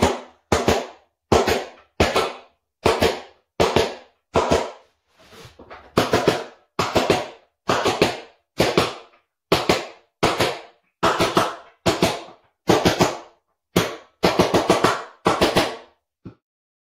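Hammer striking a nail punch to drive loose floorboard nails below the surface, done to stop the boards creaking: a long series of sharp strikes, a little more than one a second, many landing as quick double or triple taps. The strikes stop about a second before the end.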